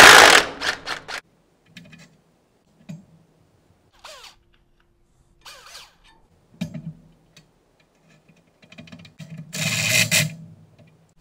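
DeWalt cordless impact driver hammering on the nuts of a tractor's radius-arm ball joint: one loud burst in the first second, and another about ten seconds in. Faint clicks and a couple of short squeaks come between them.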